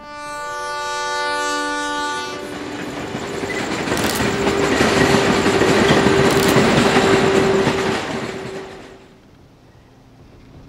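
A train horn sounds for about two seconds, then the noise of a passing train swells with a held horn note under it, loudest in the middle, and fades away about nine seconds in.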